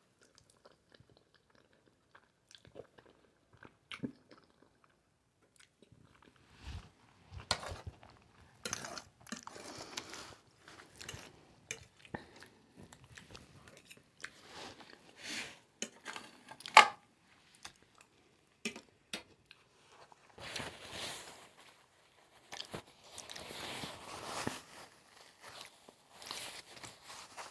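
A person chewing spaghetti in Alfredo sauce, with many small mouth clicks. It starts after a few nearly quiet seconds and has one sharp click a little past the middle.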